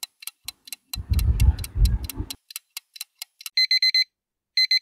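Countdown-timer sound effect: a clock ticks rapidly, about four or five ticks a second. Near the end the timer runs out and a digital alarm starts beeping in quick bursts of four beeps, about once a second. About a second in there is also a low rumbling noise lasting about a second.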